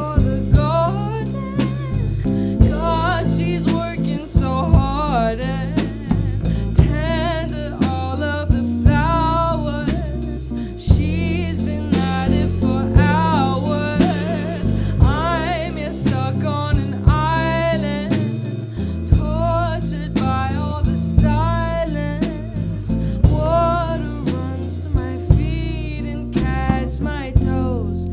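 A woman singing a wavering melody over a small band: hollow-body electric guitar, bass guitar and drum kit, with the drums marking a steady beat.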